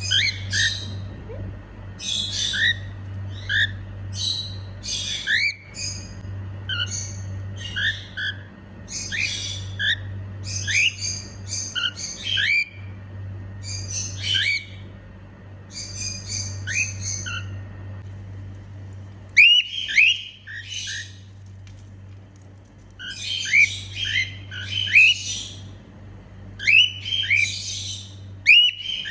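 Female cockatiel calling: quick runs of short, rising whistled notes mixed with rougher, scratchy chirps, coming in bursts with brief pauses, over a steady low hum.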